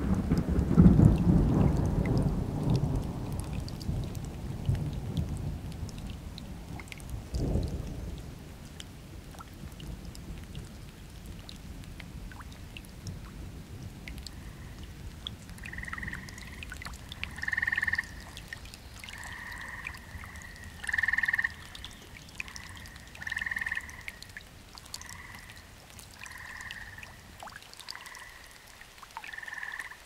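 A thunderclap at the start rolls away in a low rumble over several seconds, with a second, shorter rumble about seven seconds in, over steady rain. From about halfway, a frog calls repeatedly, short calls every second or two.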